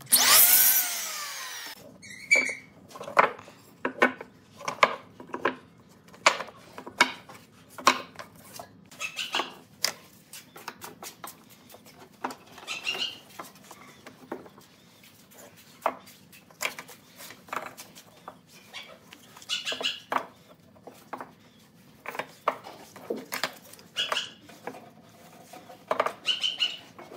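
A miter saw cuts through a thin wood strip, its blade whine falling as it spins down over about two seconds. Then a long run of separate sharp wooden knocks and clatters as glued wood blocks and strips are set down and pushed together between pipe clamps.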